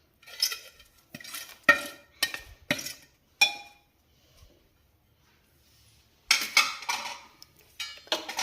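Metal spoon clinking and tapping against metal cookware while fried onions are spooned over the rice: a run of separate sharp clinks, a pause of a couple of seconds, then a quicker clatter near the end.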